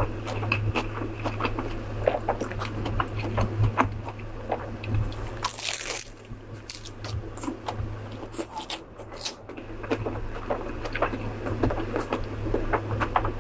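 Close-miked eating sounds: crunchy bites and chewing as a series of sharp crackles, with one louder crunch about five and a half seconds in, over a steady low hum.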